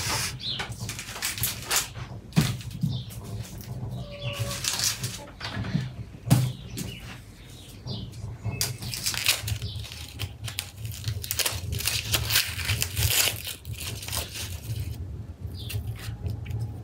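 Dry onion skins crackling and rustling as an onion is peeled with a small knife, in quick irregular scratchy strokes.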